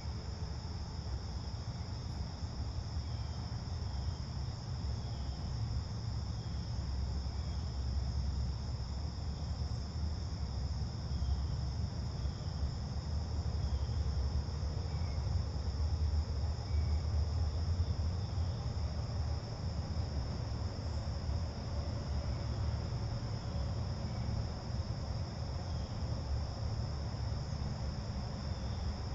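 Crickets chirping in a steady, unbroken high-pitched chorus, over a low, steady rumble.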